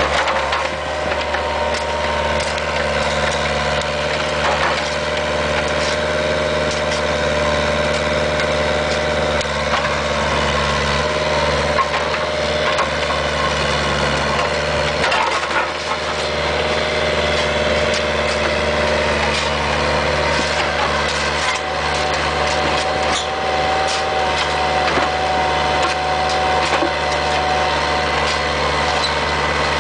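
Bobcat 430 ZHS mini excavator's diesel engine running steadily under load while its bucket breaks up asphalt, with many sharp cracks and crunches throughout.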